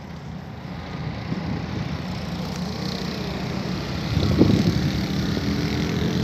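Heavy trucks' diesel engines working hard up a steep mountain grade: a steady low drone that swells a little about four seconds in.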